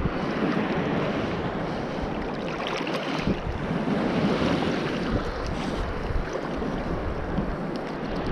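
Sea surf washing on the shore, with wind buffeting the microphone in irregular low rumbles.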